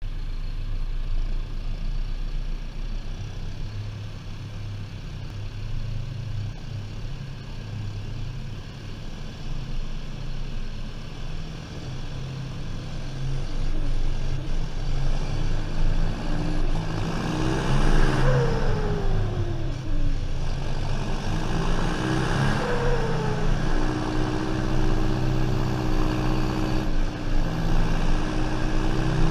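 John Deere 6430 Premium tractor's turbo diesel engine running under load, heard close up from the bonnet. It grows louder about halfway through, its pitch dips and climbs twice, and it then settles into a steady, louder drone.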